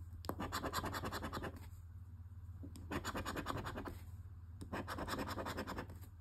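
Scratch-off coating being scraped from an instant lottery scratch ticket in quick rubbing strokes, in three bursts with short pauses between.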